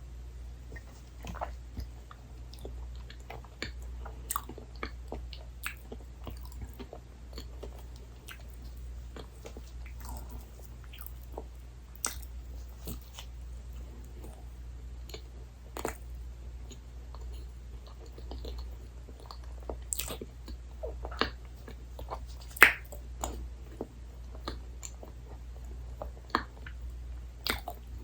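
Close-miked chewing and biting of soft dessert, with wet mouth sounds and irregular small clicks; one sharp click about three-quarters of the way through is the loudest. A steady low hum underneath.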